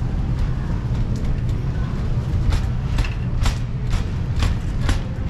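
Footsteps on a hard floor, about two a second, starting about two and a half seconds in, over a steady low hum.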